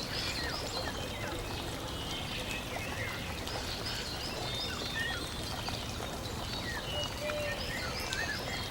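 Birds chirping, many short calls scattered throughout, over a steady rushing noise like running water.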